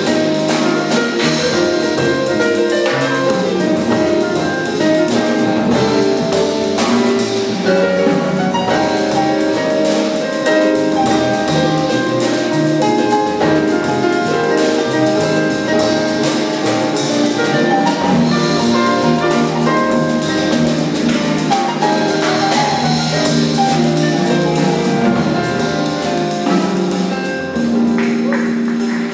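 Live jazz combo playing an instrumental passage without vocals: archtop electric guitar, piano, double bass and drum kit with busy cymbals. It drops in level near the end.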